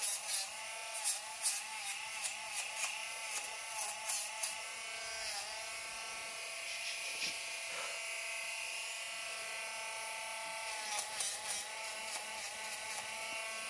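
Handheld rotary dog nail grinder running with a steady whine, grinding a dog's toenails. The pitch dips and wavers as the sanding drum is pressed against a nail, with scratchy grinding in the first few seconds and again near the end.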